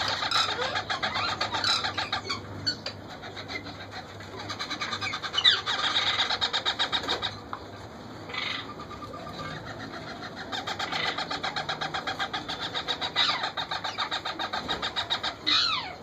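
Indian ringneck parakeet chicks begging as they are fed by the parent: three runs of fast, buzzing pulsed calls a few seconds each, with a few short calls that drop sharply in pitch, the last near the end.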